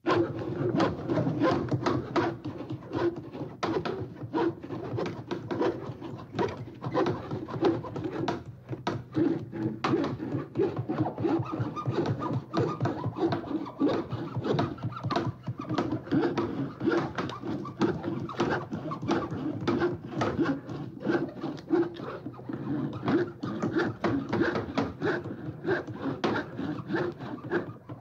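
A spooky sound-effect track from a 1989 Hallmark cassette that starts suddenly out of silence: a dense, continuous animal-like chattering and cooing full of rapid clicks.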